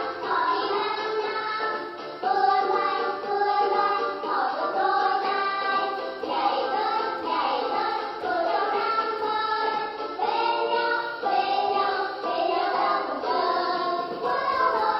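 Recorded children's song: a children's choir singing over backing music.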